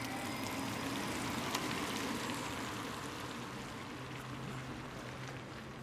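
Tyres hissing on wet asphalt as a hybrid car passes at low speed and pulls away, the hiss slowly fading after about two seconds.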